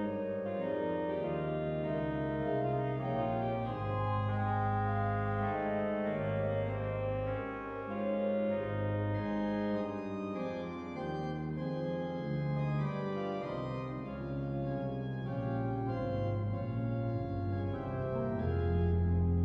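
Meta virtual pipe organ sounding Cavaillé-Coll organ samples from St. Étienne, Caen, playing French Romantic organ music: held chords and a melodic line over changing pedal bass notes.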